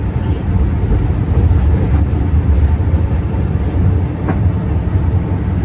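Airliner cabin noise during the takeoff roll: a loud, steady low rumble of the jet engines and the wheels running along the runway.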